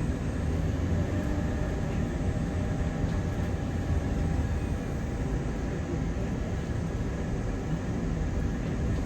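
London bus heard from on board while under way: a steady low engine rumble with a faint steady whine above it.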